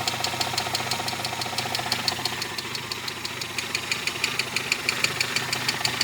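Mazda 626 engine running at idle with a sharp, clear, regular knock, about six or seven strikes a second, which the owner traces to the first cylinder.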